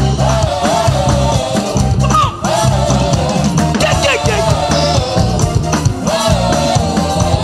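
Live church praise band music with a steady beat, a lead vocalist singing over it, and a brief drop in level a little over two seconds in.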